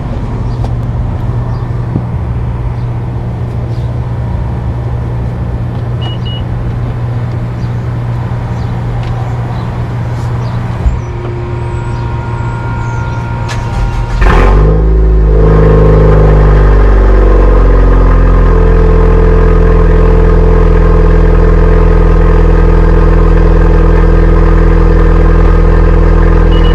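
A steady background hum until about halfway through, when the 2018 Honda Civic Type R's turbocharged 2.0-litre four-cylinder cold-starts with a sudden loud catch and rev flare. The revs fall over a couple of seconds and it settles into a steady, loud cold idle.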